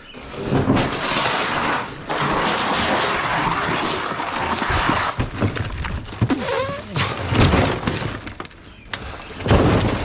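Broken plaster and lath debris crashing and rattling as it is dumped into a trailer, with a long run of crumbling clatter and some heavier thuds near the end.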